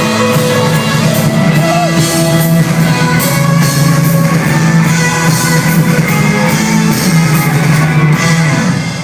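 Rock band playing live, with guitars, drums and some singing, loud and steady; the song comes to its final chord right at the end.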